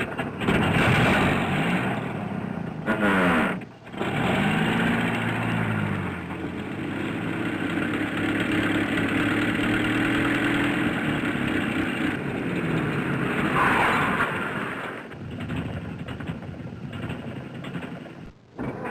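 Car engine starting and running, revved up and down several times, with short breaks between takes.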